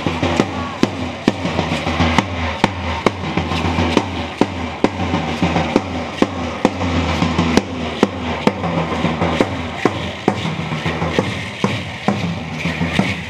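Drum beaten with a stick in a steady beat of about two to three sharp strikes a second, over a low sustained musical tone, accompanying masked dancers.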